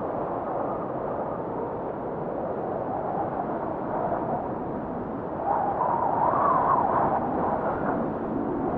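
Wind rushing steadily, rising in a gust about five and a half seconds in and easing toward the end.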